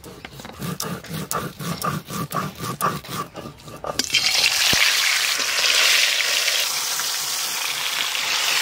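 Rhythmic scraping strokes, about three a second, then from about four seconds in pieces of snakehead fish go into hot mustard oil in a wok and sizzle loudly and steadily.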